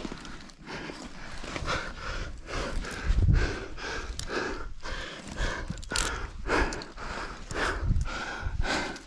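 A rock climber breathing hard in rhythmic puffs while working up a tight chimney, with a few low thumps.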